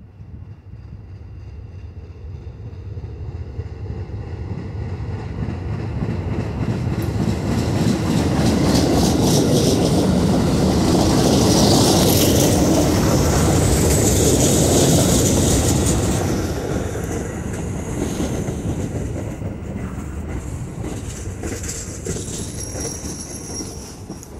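Staten Island Railway R44 subway train pulling into the station. Its rumble and wheel clatter grow loud as the cars pass alongside about halfway through, then ease as it slows, with a high squeal near the end as it comes to a stop.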